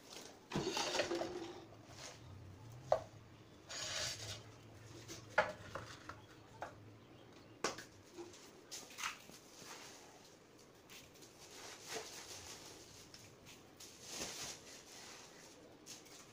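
Handling noises: scattered clicks and knocks of cut PVC pipe pieces and tools being picked up and set down on a workbench, with a few short scraping rustles.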